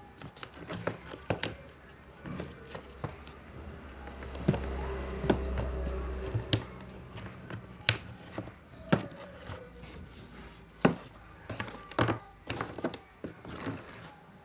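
Irregular sharp taps and clicks of fingers handling and pressing a wooden board, with a low hum swelling for a couple of seconds in the middle.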